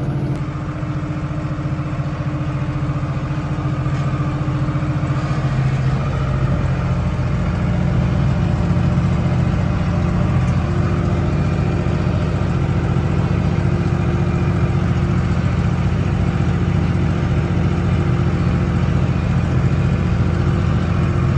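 Tractor engine running steadily under load while driving the fan of a Jacto Arbus 2000 air-blast sprayer, which is blowing spray into the crop.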